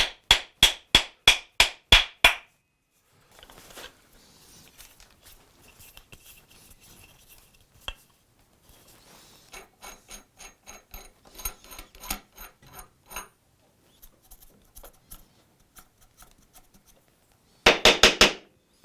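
Hammer tapping in a steady run, about four strikes a second for two seconds, then quieter scraping and lighter ticking, and a quick flurry of loud taps near the end.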